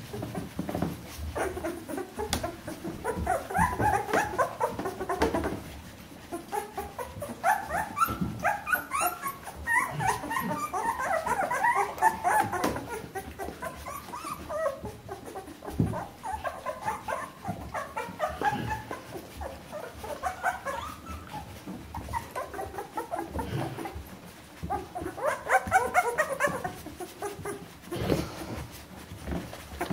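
A litter of two-week-old Bernese Mountain Dog puppies whimpering and squeaking: many short, high calls overlap in bouts, with brief lulls between them.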